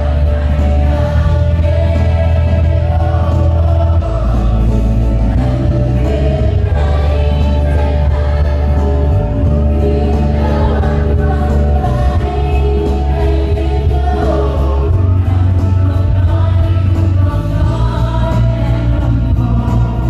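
Children's choir singing a Thai song with a female lead singer, through the stage microphones and PA, over backing music with a deep bass line that changes note every few seconds.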